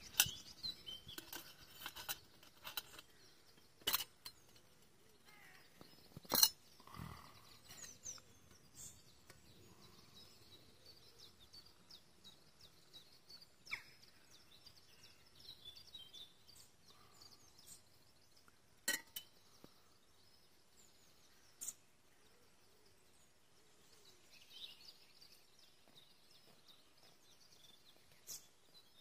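Metal spoon clinking and scraping against a small camping pot and cup while stirring porridge, with a few sharp clinks standing out. Birds sing faintly in the background.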